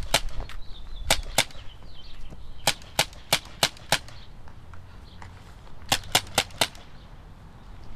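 Sharp cracks of a toy gun firing, about a dozen shots in three quick bursts, each shot roughly a third of a second after the last.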